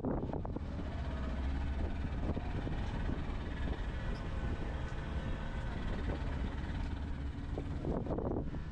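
Boat engine running steadily, a low rumble under wind and water noise.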